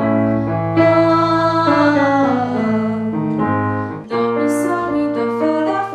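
A children's vocal group singing held notes over piano chords, the voices gliding down in pitch midway, with a short break about four seconds in.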